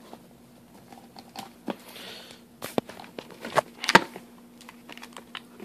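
Hands rummaging through a cardboard shipping box: rustling of cardboard and plastic wrap with scattered clicks, and several sharper knocks of packaged items bumping together, the loudest about four seconds in.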